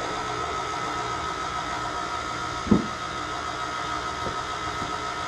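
Electric mixer running steadily with a constant motor whine, mixing cookie dough while the dry ingredients are slowly added. A brief loud sound about halfway through.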